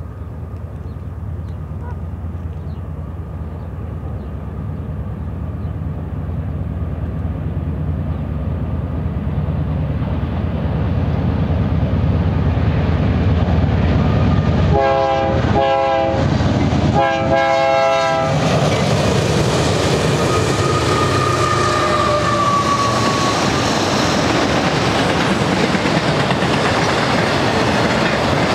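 BNSF freight train with GE C44-9W diesel locomotives approaching, the engines' rumble growing louder. The locomotive horn sounds two blasts a little past halfway. The train then passes with the steady rolling clatter of auto-rack cars' wheels on the rails.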